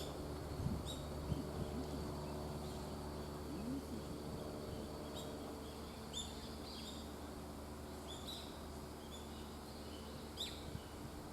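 Small birds chirping: short, high calls repeated every second or so, over a steady background noise.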